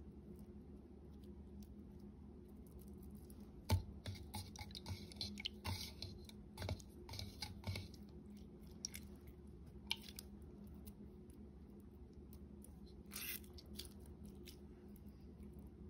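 Wet squishing and small crackling clicks of a borax-and-glitter-glue ball being squeezed and rolled between the hands, pressing trapped air out of it; the clicks come thickly from about four seconds in, then now and then, with a short burst near the end. A faint steady low hum lies underneath.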